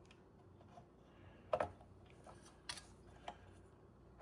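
A few faint, short clicks and taps of PC hardware being handled: one about a second and a half in, then two more near the end.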